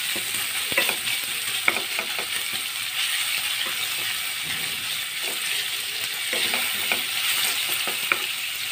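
Sliced onions sizzling in hot oil in a kadhai over a full gas flame, a steady hiss. A wooden spatula stirs them, and its scrapes and taps against the pan come through as scattered short clicks.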